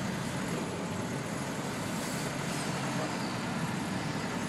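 1991 UD 1200 truck's four-cylinder engine running steadily, heard from inside the cab.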